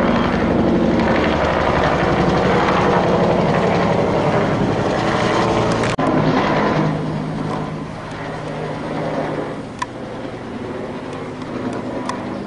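Military helicopter flying low and close, its rotor chopping steadily, then fading as it moves off about seven seconds in.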